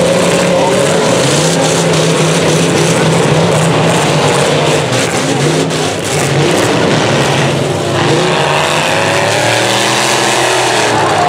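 Several demolition derby vans' and trucks' engines revving loudly at once, their pitches rising and falling as they accelerate and back off across the dirt arena.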